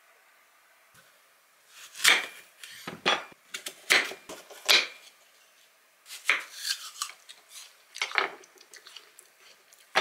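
A knife cutting a crisp apple into wedges on a wooden cutting board: a string of sharp cuts and taps on the board, about one a second, starting about two seconds in.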